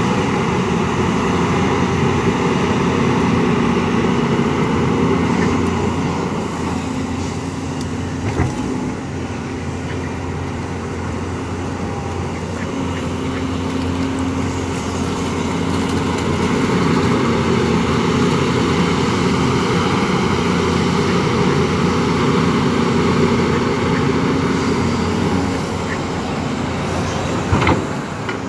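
Volvo EC210 LC excavator's diesel engine running under digging load, its level swelling and easing as the bucket works the wet mud. A sharp knock about eight seconds in and another near the end.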